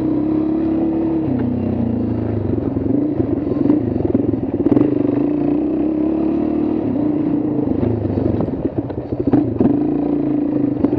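A vehicle engine running steadily, its pitch dropping and rising twice. A few short clattering knocks come through, the loudest about halfway and near the end.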